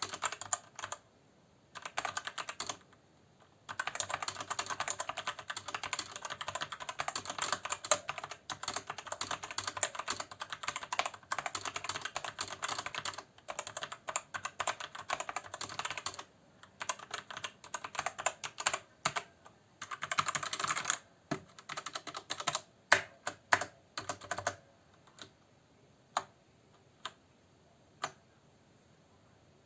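Typing on a Marvo KG950 mechanical keyboard with linear Outemu Red switches. Fast, dense key clatter runs for most of the time, with short pauses, and thins to scattered single key presses near the end.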